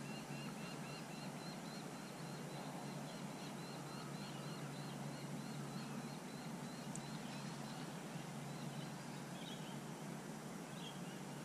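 A small animal calling outdoors: a high chirp repeated about four times a second, stepping up in pitch early on and fading out about seven seconds in, over faint steady background noise.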